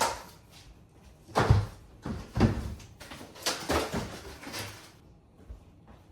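Cardboard packing pieces being handled and pulled out of a box: a series of scraping, rubbing bursts of cardboard on cardboard, about five in all.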